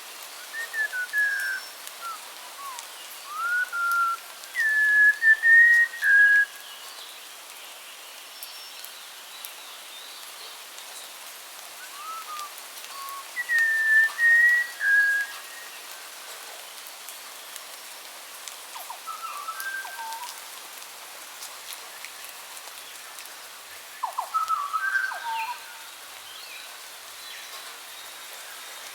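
Songbirds singing clear whistled phrases in several bursts separated by pauses, over a steady hiss.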